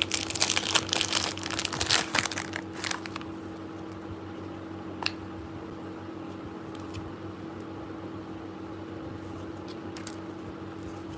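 Packaging crinkling and crackling as a makeup product is handled and unwrapped for the first three seconds or so, then a single sharp click about five seconds in. A steady low hum runs underneath.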